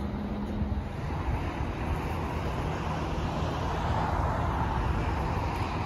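Steady rumble and hiss of the aircraft tow tug's engine pulling the Boeing 747 out of the hangar, swelling a little in the middle.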